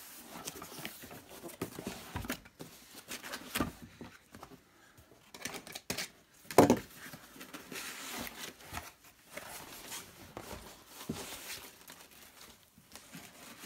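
Cardboard box and paper packaging being handled and opened, with irregular rustling and crinkling, scattered light clicks and one sharp knock about six and a half seconds in.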